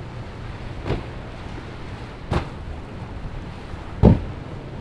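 Jeanneau motorboat running through choppy water: a low steady engine drone under wind noise, with the hull slapping down on the waves three times, about every second and a half, the last slap the loudest.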